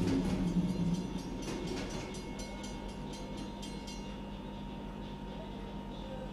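A train passing close by and fading away, its wheels clicking over rail joints for the first few seconds, heard from inside a signal box. A steady low hum remains as it dies away.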